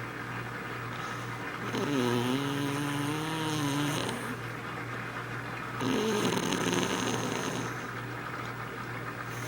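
A grandmother snoring: two long pitched snores, each about two seconds, the first about two seconds in and the second about six seconds in.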